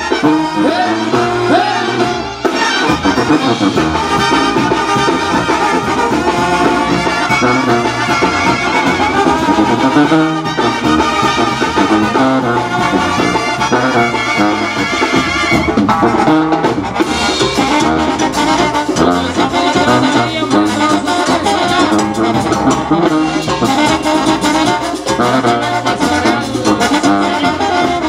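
Mexican brass band (banda) music, with trumpets and trombones playing at a steady, loud level.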